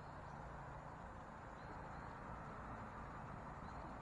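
Faint steady outdoor ambience: an even hiss with a low rumble under it and a few short, faint high chirps.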